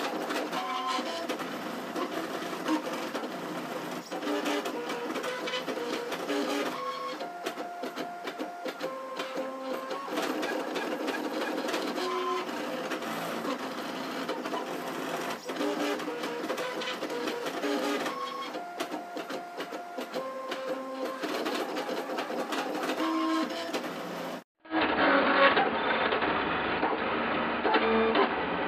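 3D printer's stepper motors driving its lead-screw axes during a print: a string of whining tones that changes pitch every second or so as the print head changes direction and speed. Near the end the sound breaks off for a moment, then comes back louder and duller.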